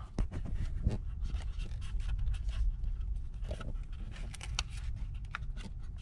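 Fingers rub, scrape and click against a rubber hose and the plastic PCV fitting in a car's engine bay while spreading oil on the fitting. Small irregular ticks and scratches sound over a low steady rumble.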